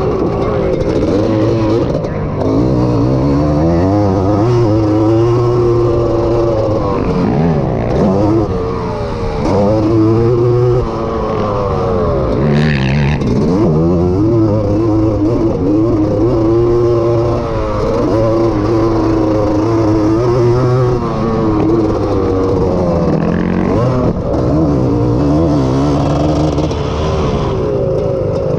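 Honda ATC250R's two-stroke single-cylinder engine running hard under race load, its pitch rising and falling again and again as the throttle is worked through the corners and straights.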